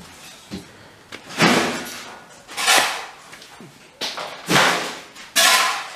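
A series of rough scraping strokes, one about every second and a quarter, each fading quickly.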